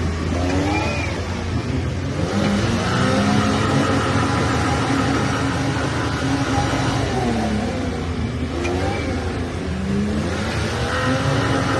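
Toyota Land Cruiser 80 series engine revving while driving off-road. Its pitch falls and climbs again twice, about a second in and around nine seconds in.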